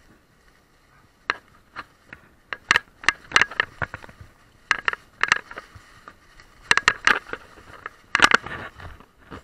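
Mountain bike clattering and rattling over bumps on a leaf-covered dirt trail descent, in clusters of sharp clicks every second or two.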